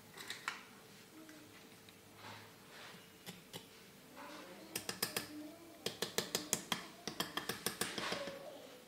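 Metal ladle and spatula clicking against a glass mixing bowl as cake batter is scooped out: a few scattered taps, then from about halfway a quick run of light clicks lasting some three seconds.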